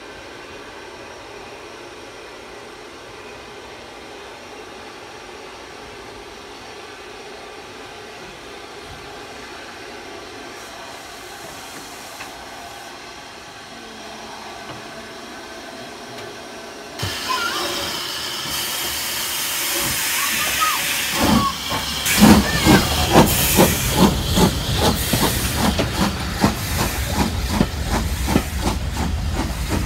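Steam locomotive moving slowly with a faint hiss. Partway through the hiss of steam grows louder, and then the engine pulls away with steady exhaust chuffs, about two to three a second and quickening slightly.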